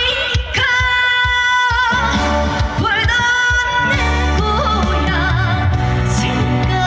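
Trot song performed live: a woman singing over a backing track with bass and drums, holding one long note near the start.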